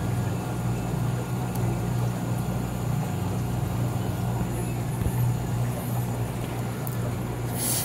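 Steady low hum of aquarium pumps and filters running, with a brief hiss near the end.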